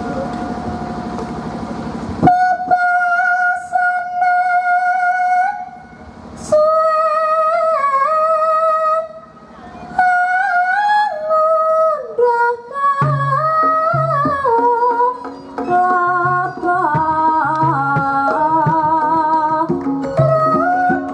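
Javanese gamelan music for wayang kulit: a solo female singer holds long, wavering notes, and about halfway through drum strokes and other gamelan instruments come in beneath her.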